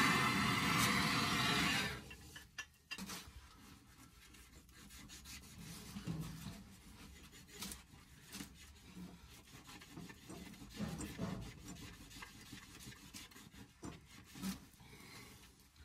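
Gas turbo torch flame hissing steadily, shut off suddenly about two seconds in. Then faint, irregular scratching of sand cloth rubbed around a copper pipe end to clean off old solder before soldering, with a few light knocks.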